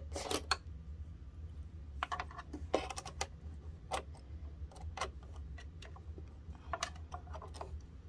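Irregular small clicks and scrapes of a screwdriver working at the screws of a sewing machine's metal needle plate as the plate is taken off to clear a thread jam.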